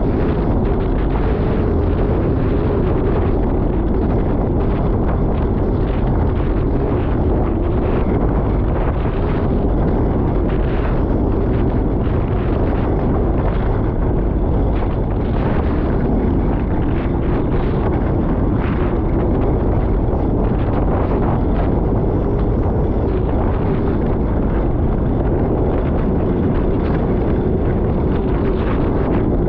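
Strong wind buffeting the microphone, steady and loud, over water rushing past a Hobie 16 catamaran under sail.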